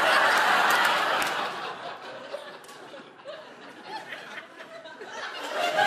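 Studio audience laughing, loudest at first and dying down over about two seconds, then a fresh wave of laughter near the end.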